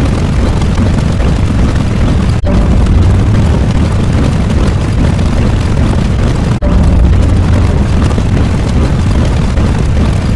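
Loud, continuous rumbling noise like an explosion sound effect, heaviest in the low end. It cuts out for a moment and restarts about every four seconds, twice inside this stretch, like a looped clip.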